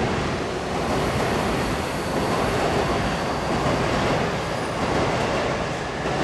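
Electric commuter train running along the tracks, a steady, even running noise.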